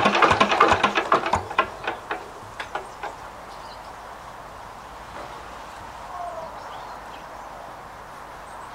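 Lister LR1 single-cylinder air-cooled diesel engine being shut down. Its regular beat slows and the strokes spread further apart over about three seconds as the flywheel coasts to a stop, leaving only quiet outdoor background.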